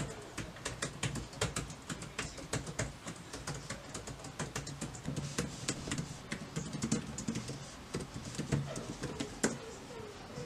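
Typing on a laptop keyboard: a fast, irregular run of key clicks.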